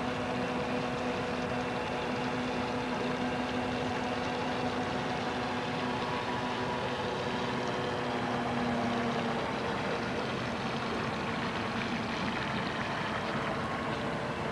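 Radio-controlled model PT boat running on the water: a steady motor whine made of several fixed tones over a rushing haze, with its lowest tone dropping out about nine seconds in.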